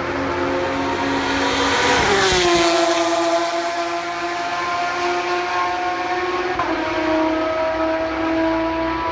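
A race car passes at high speed about two seconds in; its engine note drops sharply in pitch as it goes by. A steady engine note carries on after it, with a second, smaller drop in pitch about two-thirds of the way through.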